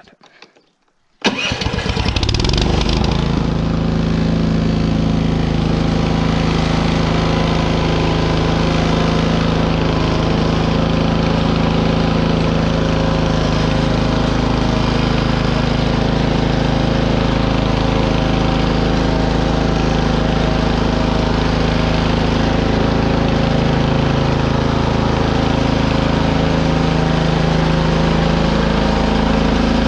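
Biltema CST 7113 snowblower's four-stroke petrol engine catching about a second in, then running steadily.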